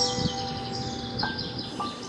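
Samsung Galaxy S5 ringtone playing: held, bell-like notes that step to a new pitch about a second in and again near the end, under a steady flurry of quick, high bird-like chirps.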